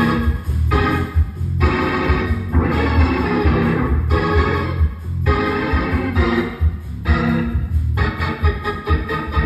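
Hammond C3 organ played through a Leslie speaker: full chords changing about once a second with short breaks between them, over a heavy bass line.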